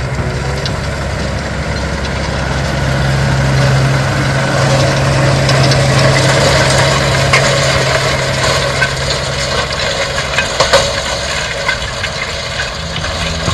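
Case IH tractor's diesel engine running steadily, growing louder a few seconds in, with scattered knocks and clatter from the working machinery in the second half.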